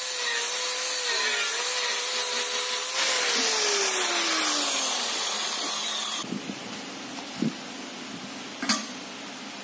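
Angle grinder grinding down a weld bead on a sheet-steel fuel tank, its motor whine steady under load, then switched off about three seconds in and winding down with falling pitch. Near the end, two short knocks as the steel tank is handled and set down.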